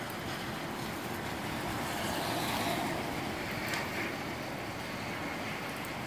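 Gusty wind rushing steadily with rain falling, the rush swelling a couple of seconds in and easing again.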